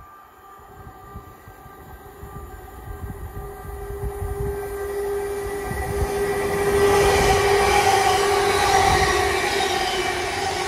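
Class 720 Aventra electric multiple unit running through the station without stopping, growing steadily louder as it approaches and loudest as it passes close by about seven seconds in. A steady tone rides over the rumble of wheels on rail.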